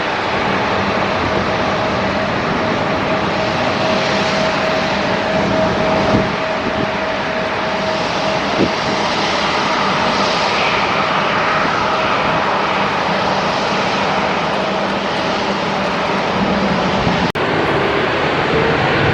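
Jet airliner engines running loud and steady: a dense rushing noise with a steady whine held over it. A brief sharp break comes near the end.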